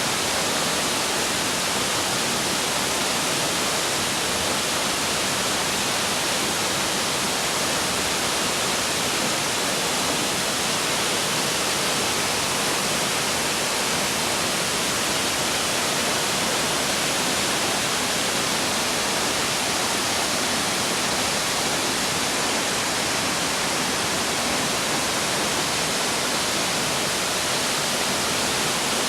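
Waterfall, water falling and crashing in a steady, unbroken rush with a hissing upper edge.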